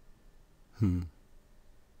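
A man's brief wordless vocal sound, falling in pitch, a little under a second in; otherwise near silence.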